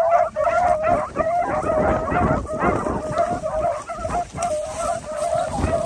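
A pack of beagles baying in a steady, overlapping chorus of notes as they run a track together.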